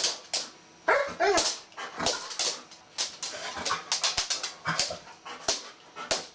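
Golden retriever whining and yipping in excitement at a fish in an aquarium. There are pitched whines about a second in, then a rapid string of short, sharp yips and clicks.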